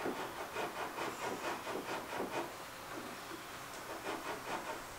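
Quick repeated rubbing and scraping strokes, about four or five a second, as the CNC router's Y-axis lead screw mount is worked by hand to shift it outward. They come in a long run, pause about halfway, then start again briefly near the end.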